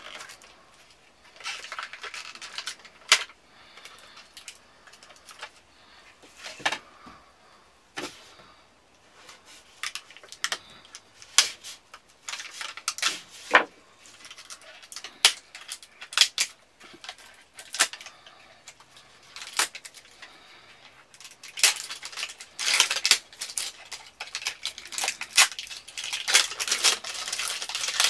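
Hands working a Mora knife out of its shrink-wrapped plastic packaging: scattered sharp clicks and taps of plastic, with denser crinkling and rustling near the end.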